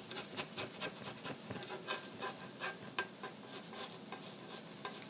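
Rolled chicken birria tacos sizzling on a flattop griddle in a steady hiss, over which an irregular run of sharp clicks and taps comes from a plastic spatula and a second utensil handling them on the griddle.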